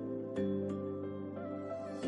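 Soft, slow background music: sustained notes with gentle plucked onsets changing about every half second to a second.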